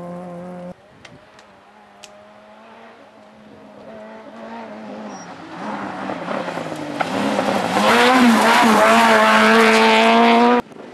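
N1-class rally car's engine on a gravel stage, approaching from a distance and growing loud as it nears, the revs climbing, briefly dropping and climbing again near the end before the sound cuts off abruptly.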